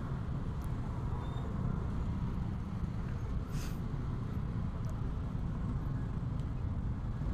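Motor scooter engines running at walking pace in slow, crowded motorbike traffic: a steady low rumble, with a brief hiss about three and a half seconds in.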